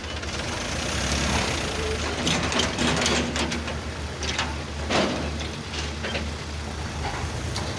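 Diesel earthmoving machinery running with a steady low hum as a hydraulic excavator loads soil into a tipper truck, with clanks and rattles of bucket and load, the loudest knock about five seconds in.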